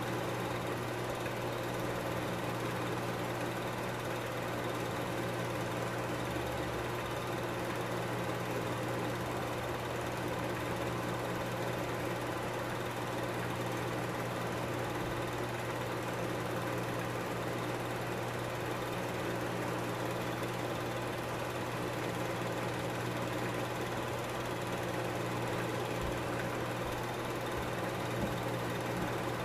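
Film projector running: a steady mechanical whirr of the motor and film transport over a constant low hum.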